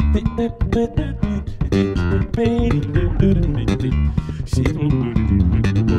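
Two bass guitars playing an instrumental piece together, a rapid run of sharply plucked notes over a low bass line.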